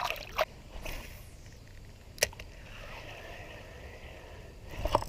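Spinning rod cast: a falling swish of line going out about a second in and a sharp click of the reel just after two seconds, followed by a steady whir of the spinning reel winding the line back in.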